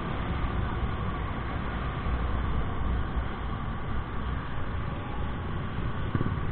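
Honda Click 125i scooter on the move, its single-cylinder engine running under steady wind and road rumble on the action camera's microphone.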